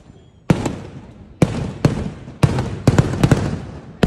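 Daytime aerial firework shells bursting overhead: about eight loud bangs at irregular intervals, some in quick pairs, each trailing off in a rolling echo.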